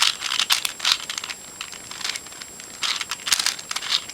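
Eastsheen 4x4 puzzle cube's plastic layers being turned in quick succession, a rapid run of clicks and clacks in two flurries with a short pause between them.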